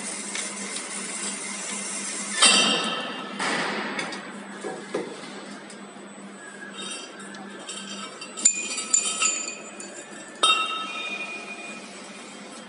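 Cut carbon steel tube pieces clanking and ringing as they drop and are handled: a loud ringing clank after about two and a half seconds, a few lighter clinks later, and another ringing clank near the end. A steady hiss runs under the first couple of seconds.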